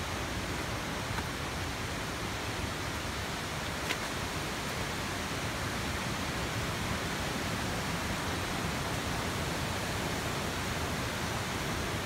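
Steady rushing roar of a waterfall heard from some way off along the trail, with a single brief click about four seconds in.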